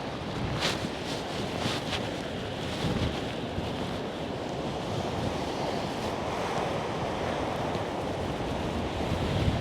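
Rough sea surf breaking and washing in strong, gusty wind, with wind buffeting the microphone.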